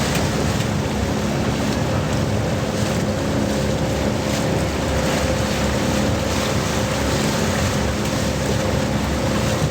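Motor of a Li River tourist raft running steadily, holding one even pitch, over a steady wash of wind and water noise.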